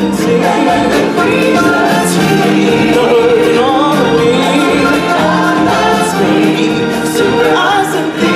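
Live stage-musical performance: a choir of several voices singing together over loud, steady instrumental accompaniment.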